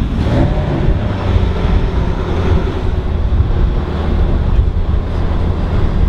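Wind buffeting the microphone: a steady, fairly loud low rumble with no distinct events.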